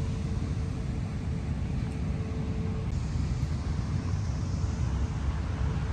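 Wind buffeting the phone's microphone outdoors: a steady, shifting low rumble.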